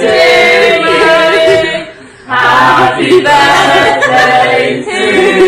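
A group of voices singing together without instruments, in long held notes, with a short pause about two seconds in.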